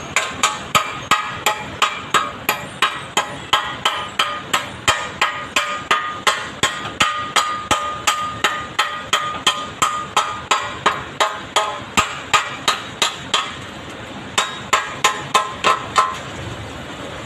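Steel struck rapidly with a hammer, about three sharp ringing metal blows a second in a steady rhythm, with a brief pause near the end before they stop.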